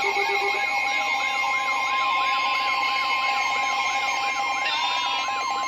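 Overlapping emergency alert tones: a siren-like warble rising and falling about three times a second, over steady alert tones from other broadcasts, with another steady tone joining about a second in. The warble stops near the end.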